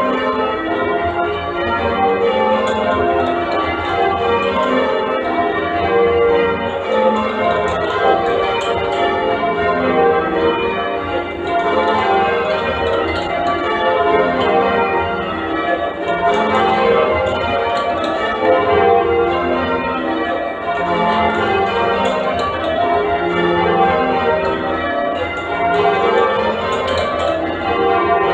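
Change ringing on St Andrew Holborn's middle-weight ring of eight church bells, a complete Mears & Stainbank cast, ringing spliced major. The strokes follow one another in a steady, unbroken stream.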